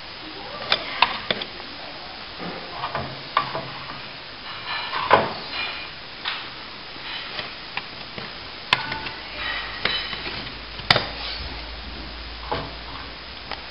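Hand plastering on a ceiling: a small plastering tool and a brush scraping and brushing wet plaster into cracks along the cornice, with irregular sharp clicks and knocks of the tool against the surface, the loudest about five seconds in and again near eleven seconds.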